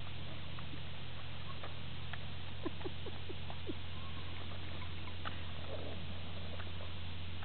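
A pug snapping its jaws at flying insects: scattered short clicks and brief squeaky sounds, bunched together about two and a half to four seconds in. They sit over a steady low hum and hiss.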